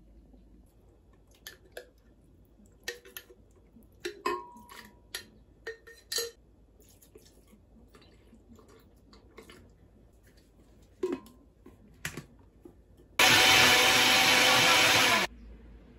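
Philips glass-jar blender running in one short burst of about two seconds, blending aloe juice, then cutting off suddenly. Before it come scattered light clinks and knocks of kitchenware being handled.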